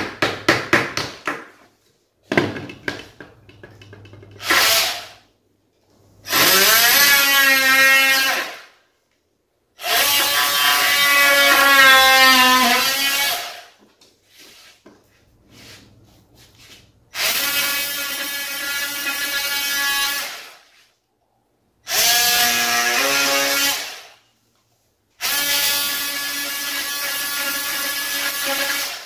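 Cordless oscillating multi-tool running in five bursts of two to four seconds, a high buzz whose pitch shifts and then holds within each burst. A quick run of ticks comes in the first two seconds.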